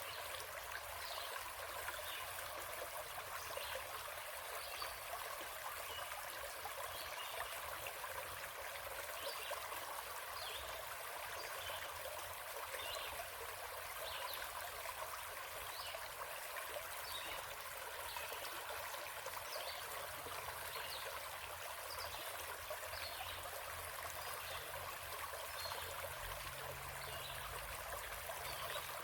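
Forest stream flowing and trickling steadily.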